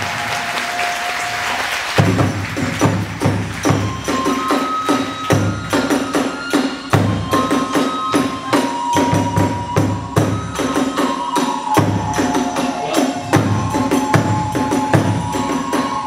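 Kagura hayashi ensemble playing: a large drum strikes heavily about every second and a half, small hand cymbals clash in a fast rhythm, and a bamboo flute holds high notes over them. The drumming comes in strongly about two seconds in.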